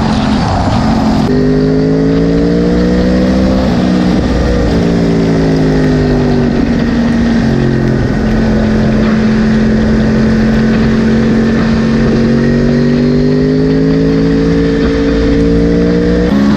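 2010 Yamaha R1's crossplane inline-four engine heard from the rider's seat on track. Its note climbs, drops at a gear change about four seconds in, eases off and holds steady for several seconds while the bike leans through a corner, then climbs again as it accelerates near the end.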